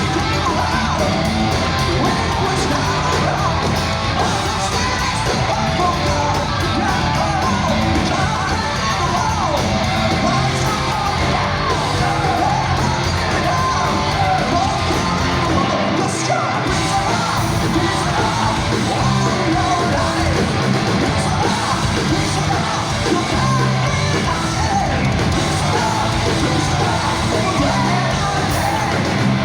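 Heavy metal band playing live, with distorted guitars, bass and drums under a singer's high, shouted vocals. The bass and drums drop out briefly about halfway through, then the band comes back in.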